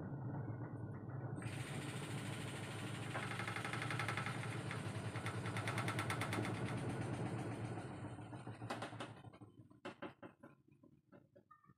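Twin-tub washing machine rumbling steadily for about nine seconds, then dying away, followed by a few light knocks near the end.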